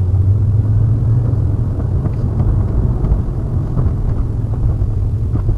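Steady low rumble of a car driving, engine and road noise as picked up by a dashcam inside the cabin.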